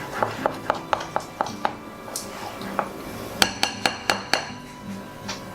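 A utensil stirring thick sourdough starter in a jar, clicking against the jar about four times a second. About three and a half seconds in, it taps the rim five times in quick succession with ringing clinks.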